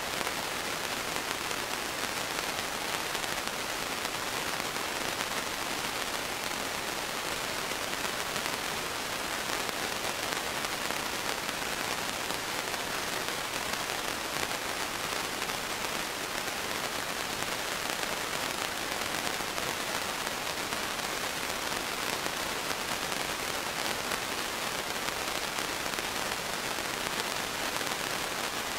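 Steady, even hiss with no other sound in it.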